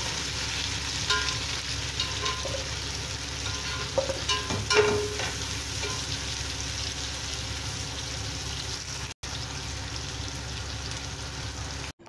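Sliced onions sizzling in hot ghee in an aluminium pot as they fry toward golden brown. A slotted metal spatula scrapes and clicks against the pot as they are stirred, mostly in the first five seconds, and the sizzle cuts out briefly twice.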